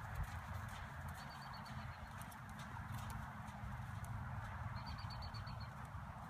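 A horse's hoofbeats at a walk on a dirt arena's soft footing, with a faint rapid high ticking heard twice.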